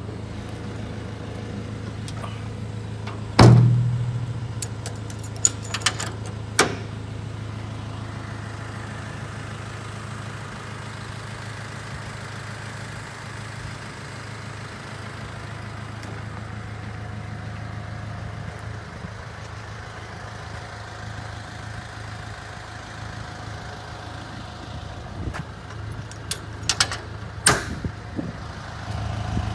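Toyota Dyna truck's engine idling steadily, with a loud bang that rings briefly about three and a half seconds in, and sharp clicks and knocks around six seconds and again near the end.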